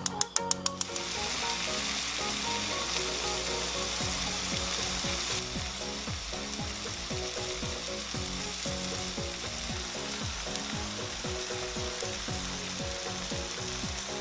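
A gas stove's igniter ticks rapidly for about a second, then a cast-iron sizzle plate of corn, onion and gochujang sauce under mozzarella sizzles steadily over the lowest flame as the cheese melts.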